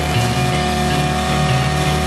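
Sport motorcycle engine running at steady revs while cruising, mixed with background music that has a moving bass line.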